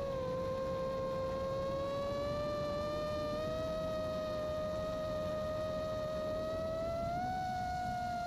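Drone propellers whining at a steady pitch, the pitch dipping slightly at the start and rising near the end, over a low rushing noise.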